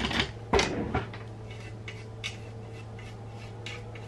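Scraping strokes as dry-rotted rubber foam seal material is scraped off a camera's cover with a tool. A few louder strokes in the first second, then fainter, sparser short scrapes.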